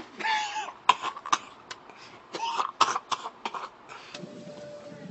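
A person coughing several times in short, harsh bursts, the longest near the start, the rest spread over the next three seconds.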